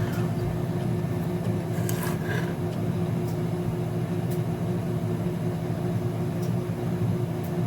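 A steady low machine hum, like a fan or air conditioner running, with a few faint clicks about two seconds and four seconds in.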